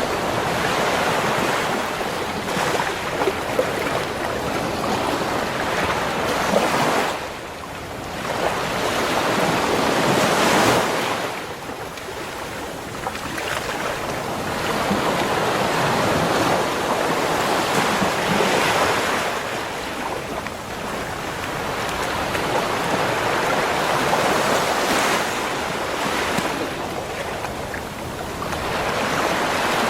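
Ocean waves breaking and washing up a beach, a continuous surf wash that swells and ebbs every few seconds, with some wind on the microphone.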